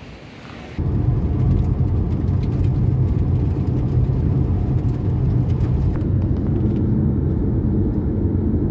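A car driving along a road, heard from inside the cabin: steady engine and road noise, strongest in the low range, with the upper hiss thinning out about six seconds in.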